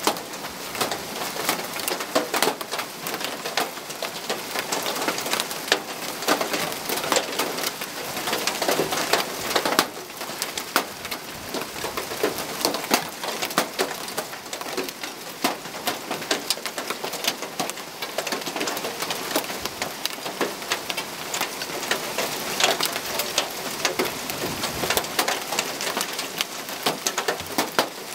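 Hail and heavy rain pelting clay roof tiles and a lawn during a strong hailstorm. A dense, steady hiss of rain is peppered with countless sharp clicks and knocks of single hailstones.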